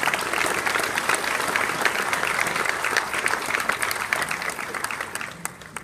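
Audience applauding with dense, sustained clapping that thins out and fades near the end.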